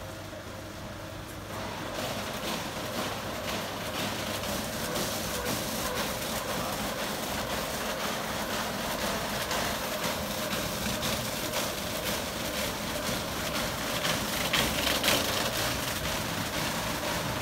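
Aquarama Stargate S4 rollover car-wash gantry running: its side brushes spin with water spraying, making a steady whirring rush that gets louder about a second and a half in. Near the end there is a brief louder hiss of spray.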